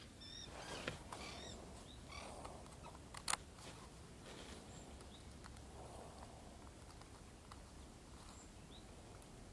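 Faint birdsong: short chirping bird calls now and then, with a single sharp click a little over three seconds in.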